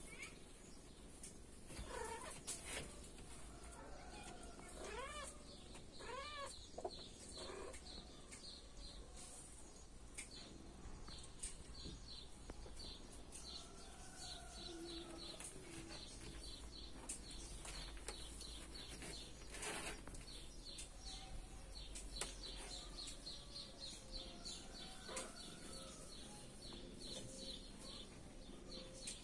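Kittens mewing: a few short high calls that rise and fall in pitch in the first several seconds. A fast run of faint high chirps repeats through much of the rest.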